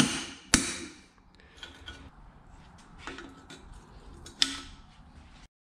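Two hammer blows on a punch driven into a freeze plug in an aluminium 4.6 Teksid engine block, each ringing briefly. Lighter metallic clinks follow as the punch and the loosened plug are worked, and the sound cuts off abruptly near the end.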